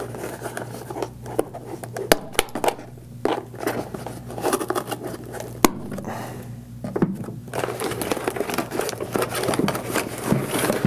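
Scissors snipping plastic tie straps on a cardboard insert, with sharp snaps as the ties give way, amid scraping and rustling of the cardboard being handled.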